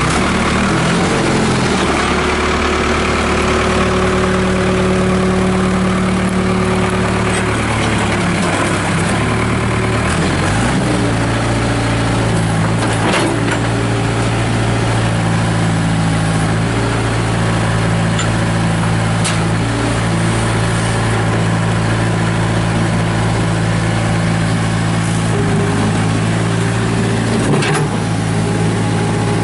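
Case 580 Super E backhoe loader's Cummins diesel engine running steadily; its engine note changes about ten seconds in, then holds steady again, with a few faint clicks.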